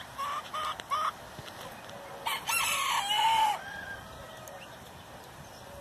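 A few short clucks from bantam chickens, then a bantam rooster crows once, the crow lasting about a second and a half.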